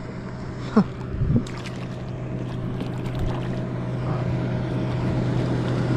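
Small boat's motor running with a steady hum that slowly grows louder, with a few light knocks about a second in.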